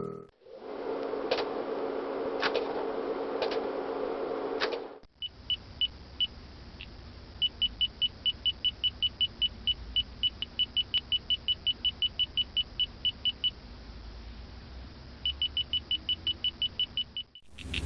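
Slide projector running with a steady fan hum, clicking sharply about once a second as it changes slides. Then a car radar detector beeps rapidly in runs of about five beeps a second, with pauses between runs, over the low rumble of the car.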